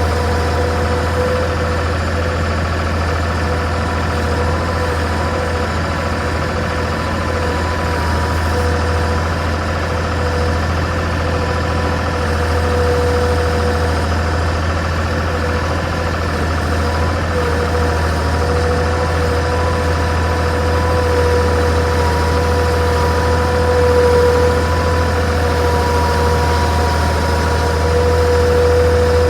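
Engine of a work machine running steadily at an even speed, with a steady whine over the low engine sound.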